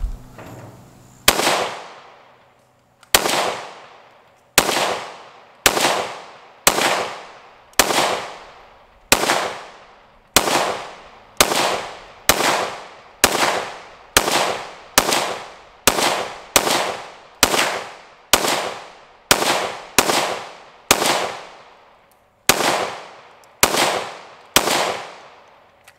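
A PSA 5.7 Rock pistol in 5.7x28mm fired in slow, steady single shots, about two dozen at roughly one a second, each crack followed by a long echo.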